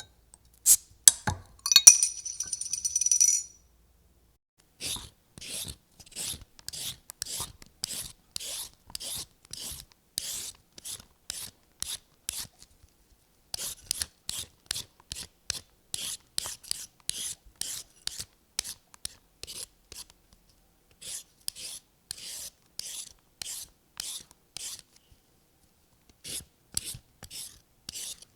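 A few sharp clicks and a brief bright metallic ring, then repeated rasping strokes, about two a second, in runs broken by short pauses: a kitchen sound effect of something being rubbed or scraped back and forth.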